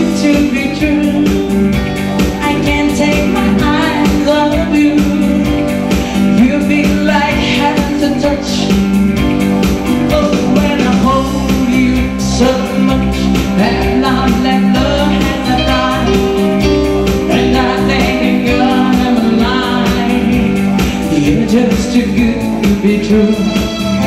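A woman singing a pop song live into a microphone over loud backing music with a steady beat.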